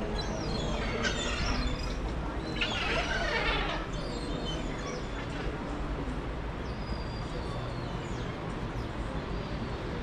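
Street ambience: a steady background rumble, with two bursts of high, chirping sounds about a second in and around three seconds in.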